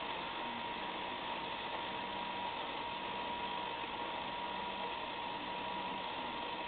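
Motor of a self-cleaning rotating litter box running steadily as its drum turns through the cleaning cycle: an even hiss with a steady whine.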